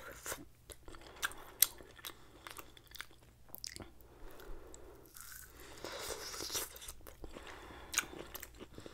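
Close-miked biting and chewing of barbecue-glazed chicken and pork kebab with vegetables: wet mouth clicks and crunches, with a sharp louder click about a second and a half in and another near the end.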